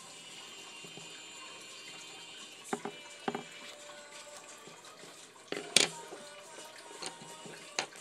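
A few sharp taps and knocks on a wooden tabletop as paper and a coloured pencil are handled, the loudest, likely the pencil set down, about three-quarters of the way through. Faint background music plays under them.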